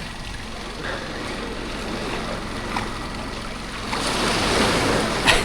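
Sea waves washing, with a surge of surf growing louder about four seconds in.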